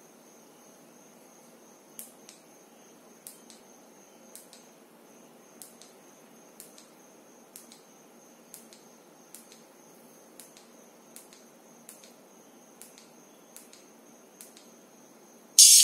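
Small push-button switch on an LED glove clicked roughly once a second, some clicks doubled, as its light modes are cycled. A faint steady high tone and hiss lie underneath, and music starts right at the end.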